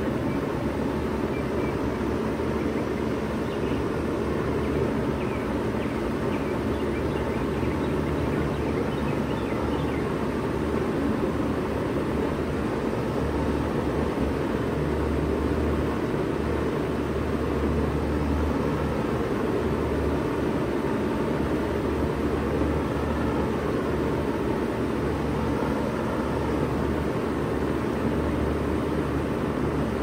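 Bard Wall-Mount 3-ton heat pump running steadily in cooling mode: an even drone of compressor hum and condenser fan noise that holds level throughout.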